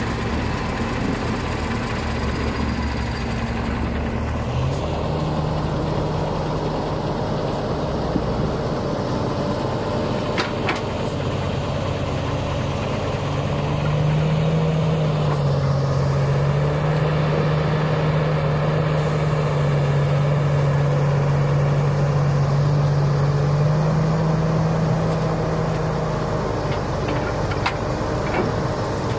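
Heavy diesel engines of a KamAZ dump truck and a Komatsu PC330 crawler excavator running steadily. The engine note shifts about five seconds in, then rises and gets louder about halfway through as the excavator works its bucket over the truck, with a few faint knocks.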